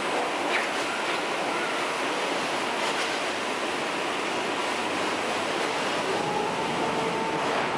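Steady rush of flowing water in a raft ride's channel around an inflatable raft. A faint steady whine comes in near the end.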